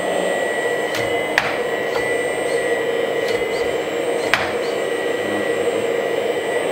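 Hydraulic pump of a Kabolite K970-200 1:14 RC front-shovel excavator running with a steady hum and a thin high whine while the shovel bucket is worked. Two sharp clicks come about a second and a half and four and a half seconds in.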